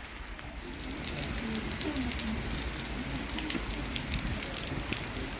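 Heavy rain falling on wet paving, a dense crackle of countless drop impacts that grows louder about a second in.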